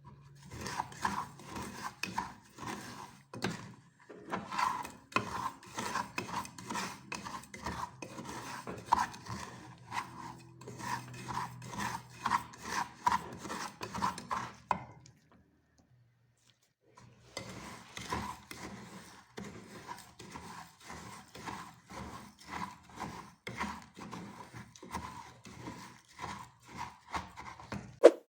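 A spoon stirring dry sugar in a pot over low heat, scraping in quick repeated strokes about two or three a second, with a short pause about halfway through.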